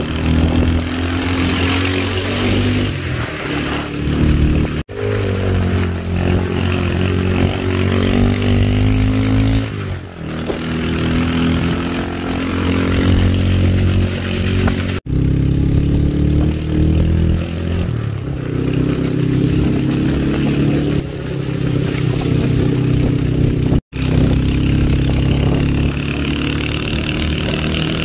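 Motorcycle engine running under way, its pitch rising and falling with the throttle, over a steady hiss. The sound drops out sharply three times.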